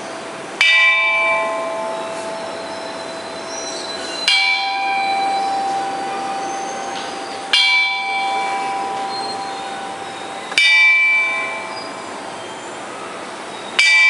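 Bronze chime bells (bianzhong) struck one at a time, five strokes about every three and a half seconds. Each stroke rings on with several overlapping tones that die away slowly.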